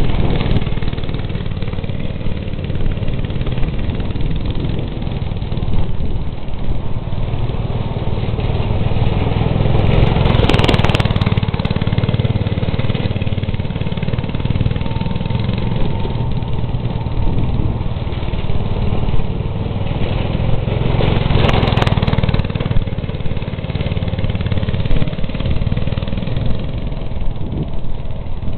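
Go-kart's small engine running continuously as the kart circles, getting louder twice as it comes close, about ten seconds apart.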